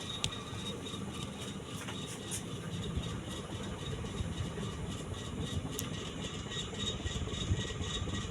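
Uchida Arctic decorative ceiling fan running steadily: a steady motor hum with a faint, evenly repeating pulse.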